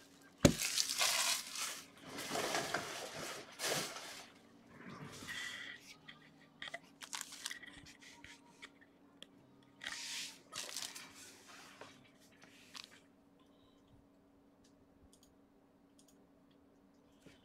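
Shrink-wrapped cardboard trading-card boxes being handled and restacked: bursts of plastic crinkling and cardboard scraping with a few light knocks, dying away after about 13 seconds.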